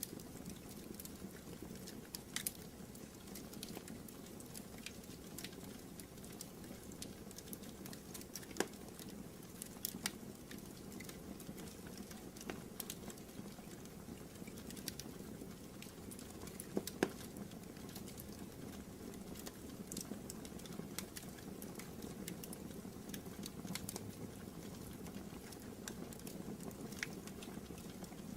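Wood fire burning in a fireplace: a steady low rumble of flame with irregular sharp crackles and pops.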